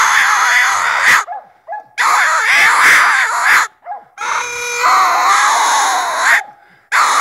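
Coon hound treeing, giving four long, harsh bawls of one to two seconds each with short breaks between them: the bay of a dog holding a raccoon up a tree.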